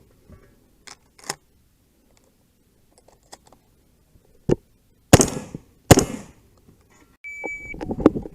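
Two loud gunshots about three quarters of a second apart, some five seconds in, with fainter clicks and knocks before them and a brief high ringing tone near the end.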